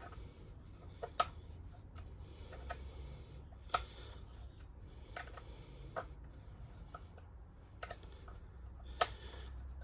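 A bolt being tightened by hand tool into a freshly fitted Heli-Coil thread insert: sharp metallic clicks every second or two with faint rasping between them, the thread now holding tight.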